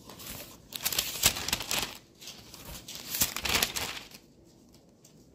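Thin Bible pages being leafed through in two bursts of rustling, each about a second and a half long, while the passage is looked up.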